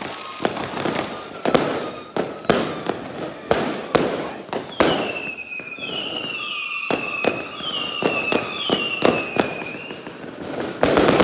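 Fireworks going off: a rapid run of sharp bangs and crackles, with a series of high whistles, each falling in pitch, in the middle of the stretch.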